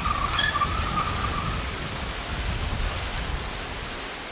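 A car passing on the highway: its tyre noise, with a brief high whine, is loudest in the first second and a half. Under it runs a steady rushing noise.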